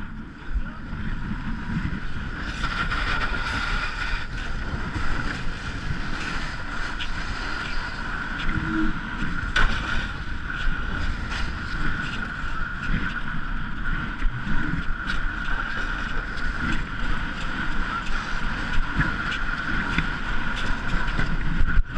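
Wind buffeting the microphone with a low rumble, over a steady high-pitched whine, broken by scattered short knocks.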